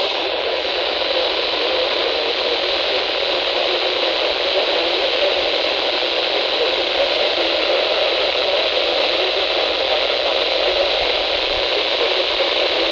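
Steady radio static: an even hiss from a weather radio receiver with no program audio coming through.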